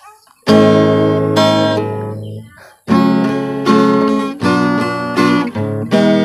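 Acoustic guitar strummed in chords. It starts about half a second in, breaks off briefly near the middle, then goes on with repeated strums.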